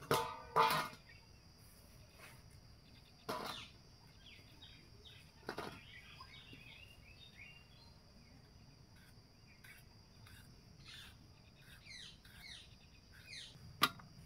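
Small birds chirping in the background, with a steady high insect drone. A few sharp knocks and clinks of metal kitchenware and a boti blade being set down on the ground, the loudest two, with a short ring, right at the start.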